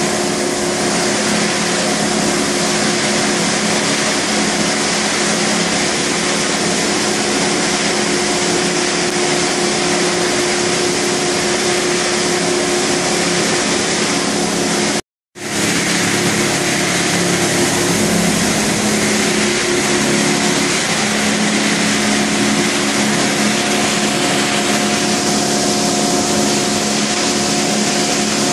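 Steady machinery noise in a thermoforming plant: a continuous motor hum with a few steady tones over a broad hiss. It breaks off completely for an instant about halfway through.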